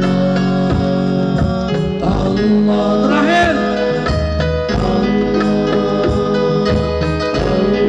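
Live sholawat band music: held chords over a steady beat, with a wavering melody line that swells about three seconds in.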